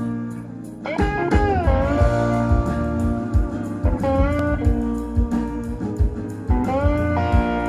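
Blues-rock band music: a slide guitar gliding up and down between notes over bass and a steady drum beat.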